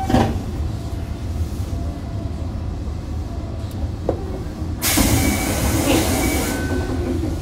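Toei Asakusa Line 5300-series subway car heard from above its VVVF inverter: a steady low rumble from the running gear, with a sharp knock just after the start. About five seconds in, a hiss sets in, lasts a little under two seconds and stops.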